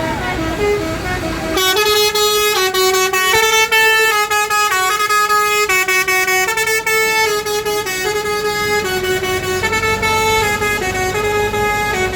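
Basuri multi-tone 'telolet' bus horn playing a tune. It comes in loudly about a second and a half in, and its notes step up and down every fraction of a second through to the end.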